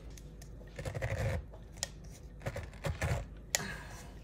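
Pineapple corer being twisted down into a pineapple, its blade crunching and scraping through the fruit in several crackly bursts with sharp clicks.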